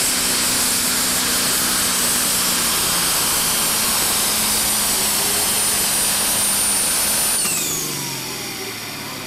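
Pro stock pulling tractor's turbocharged diesel engine running flat out under full load, with a high, steady turbo whine. About seven seconds in, the throttle comes off at the end of the pull and the whine slides down in pitch as the engine winds down.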